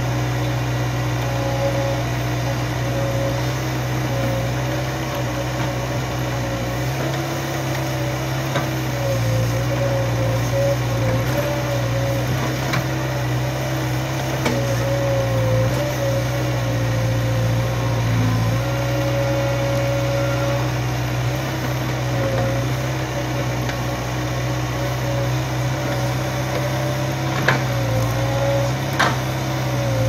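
Kobelco SK03 excavator's diesel engine running steadily while the machine digs, its pitch dipping slightly every few seconds. Two sharp knocks come near the end.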